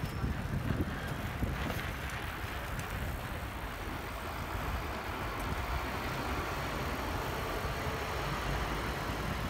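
Steady low rumble of wind on the microphone, with bicycle tyres rolling on tarmac.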